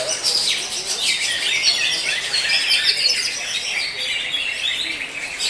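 Cucak hijau (green leafbird) singing a fast, unbroken stream of varied chirps, trills and whistled phrases, high-pitched and busy.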